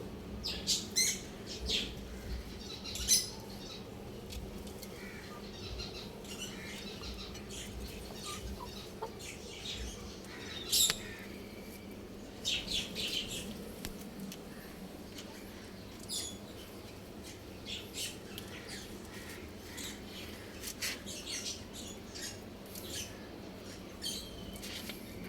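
Chickens giving short, scattered chirps and squawks, with a few sharper clicks and a steady low hum underneath.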